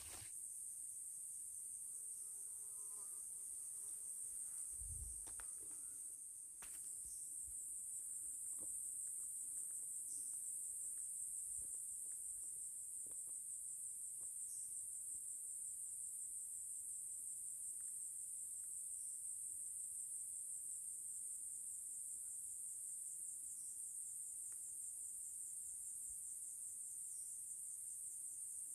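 Steady, high-pitched chorus of insects chirring, with a soft low bump about five seconds in.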